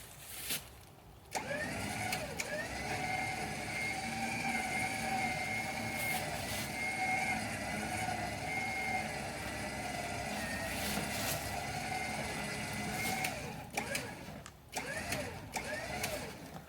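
Electric winch running steadily under load with a wavering whine, pulling a log up onto a portable sawmill. It starts about a second in and cuts off about three seconds before the end, followed by a few knocks.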